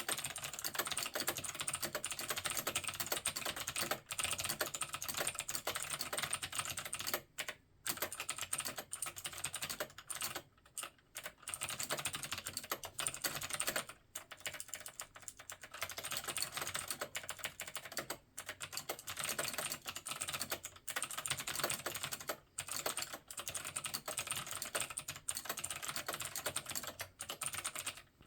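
Fast, continuous typing on a Dih Shin DS-2003 mechanical keyboard fitted with Outemu Spring Green clicky switches with nylon click jackets, in a hollow plastic case. It pauses briefly a few times.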